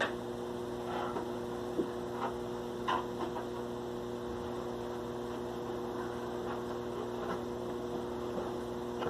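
Steady electrical mains hum, with a few faint short clicks and knocks in the first three seconds.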